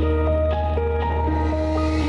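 Background music: a gentle melody of held notes stepping from one to the next about every half second over a steady low bass.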